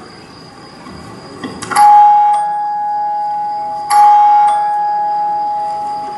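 A two-note electronic chime, a higher tone followed by a lower one, ding-dong, sounding twice about two seconds apart, each note ringing on and slowly fading.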